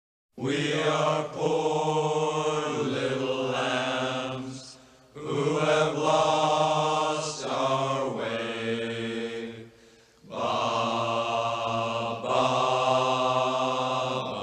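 Chanted vocal music: three long sung phrases of held notes, with short breaks about five and ten seconds in.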